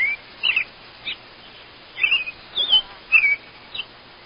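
A small bird calling: a run of short, high chirps and warbled notes, some sweeping down in pitch, coming about twice a second and stopping shortly before the end.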